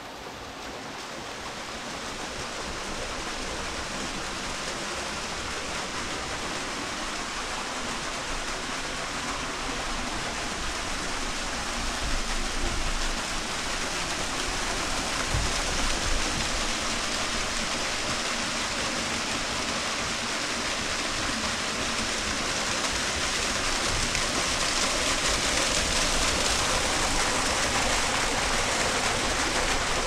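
Steady rushing of a waterfall, a dense even hiss of falling water that grows gradually louder.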